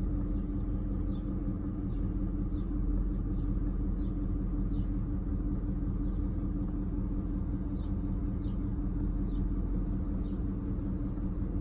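Steady low hum of a vehicle engine running at idle, unchanging throughout. Faint short high chirps repeat about once a second.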